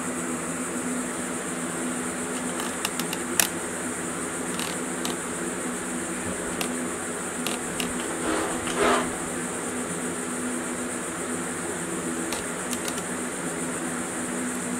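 Steady mechanical fan hum with a faint high hiss, broken by a few light clicks from hands handling engine parts, and a short rag-wiping scuff about eight and a half seconds in.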